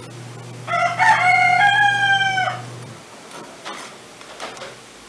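A rooster crowing once, starting about a second in and holding its call for nearly two seconds, over a low steady hum that stops just after.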